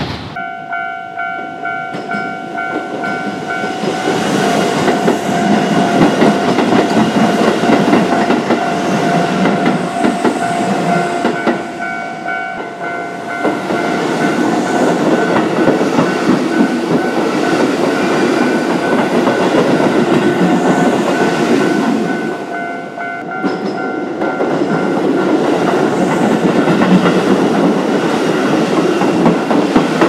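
Japanese level-crossing warning bells dinging over and over while Keisei electric commuter trains pass over the crossing, their wheels rumbling and clattering on the rails. The sound cuts twice to another crossing, where the train noise dips briefly and the bells come to the fore before the next train passes.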